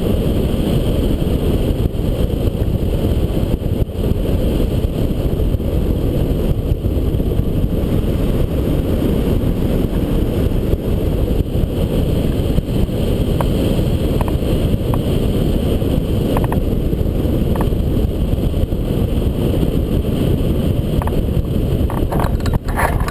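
Wind buffeting the microphone of a camera mounted on a hang glider in gliding flight: a loud, steady low rumble. A scatter of clicks and knocks comes near the end as the glider comes down close to the ground.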